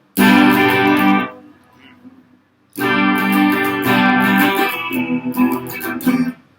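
Guitar strumming chords: one chord struck and left ringing for about a second, then after a short pause a run of strummed chords for about three and a half seconds, cut off just before the end.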